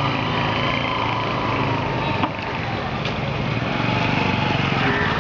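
A small engine running steadily, with two short sharp clicks about two and three seconds in.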